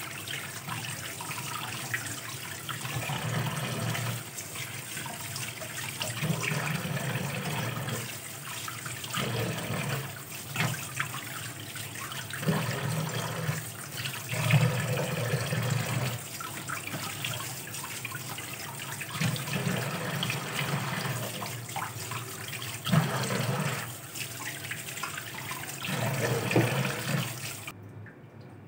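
Kitchen tap running into a steel bowl in a stainless steel sink as raw fish pieces are rinsed and rubbed by hand, the water splashing in repeated surges. The water stops suddenly shortly before the end.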